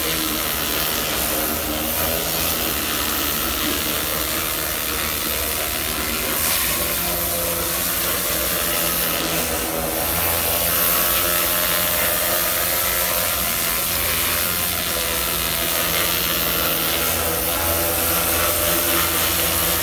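Hot-water pressure cleaner blasting clay roof tiles through a telescopic pole, first with a rotary surface-cleaner head and then with a lance nozzle: a steady, loud hiss of spray over a low, even hum.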